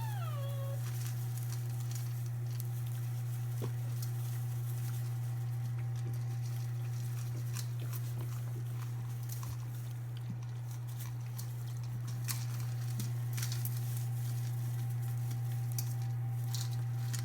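Five-week-old Labrador puppies feeding from their bowls: scattered small clicks and taps of eating and lapping, with one puppy whimper falling in pitch right at the start. A steady low hum runs underneath.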